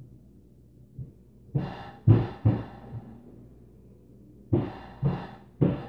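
Heavy thuds of stomping on the floor above, heard through the ceiling: two groups of three hard thumps about half a second apart, with a few fainter knocks between.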